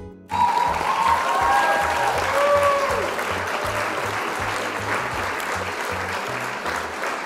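A crowd cheering and applauding, starting suddenly, with a few whoops in the first seconds, over background music with a steady plucked bass line.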